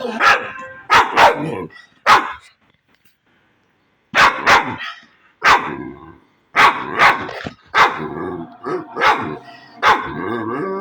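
Dog barking: a dozen or so short, sharp barks in irregular clusters, with a pause of about a second and a half a few seconds in.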